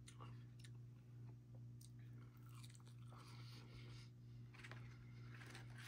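Faint chewing of sauce-covered fries, with scattered soft crunches and mouth clicks, over a steady low hum.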